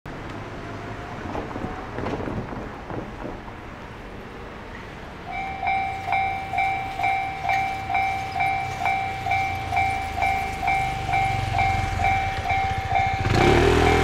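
A car drives over the road, then about five seconds in the level crossing's electronic warning bell starts: a two-tone ding repeating about twice a second, signalling that a train is approaching. Near the end a motor scooter's engine passes close by under the bell.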